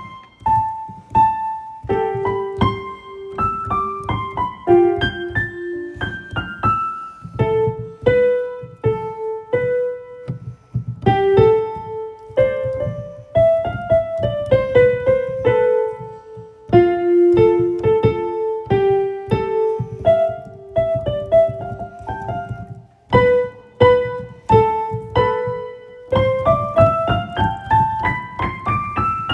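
Solo piano music: a melody of separate notes over a low accompaniment, ending in a run of rising notes near the end.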